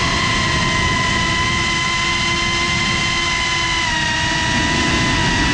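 Brushless motors and ducted propellers of a GEPRC CineLog 35 cinewhoop drone whining at a steady pitch, recorded on the GoPro it carries, over a low rushing noise of prop wash. The pitch sags slightly about four seconds in as the throttle eases.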